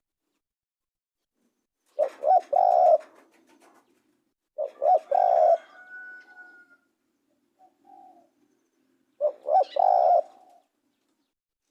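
Spotted dove cooing: three phrases, each two quick short notes run into a longer coo, spaced a few seconds apart.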